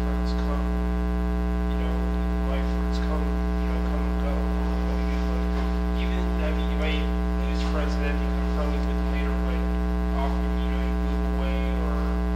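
Steady electrical mains hum with a stack of overtones, the loudest thing throughout. Under it, from about two seconds in, a faint, distant voice comes and goes.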